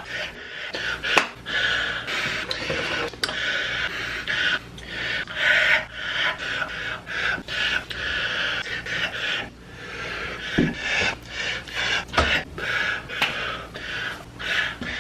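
A rapid string of a man's breathy gasps and inhales, spliced end to end with abrupt cuts and small clicks between them.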